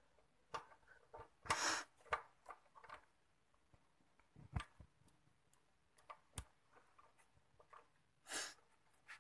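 Scattered metal clicks and a few short scrapes from a wrench working loose the rear shock absorber's mounting bolt on a Yamaha Jupiter MX, turned counterclockwise until the bolt comes free.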